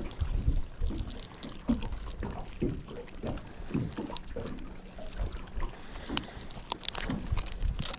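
Small boat on the water: irregular low slaps and knocks against the hull, with wind on the microphone and a few sharp clicks near the end.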